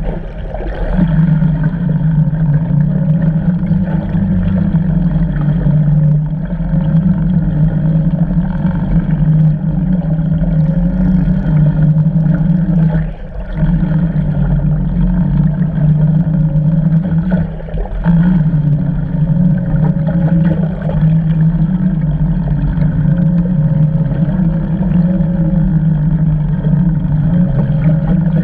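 Steady low drone of a boat's engine and propeller heard underwater through a camera housing, dropping away briefly a couple of times.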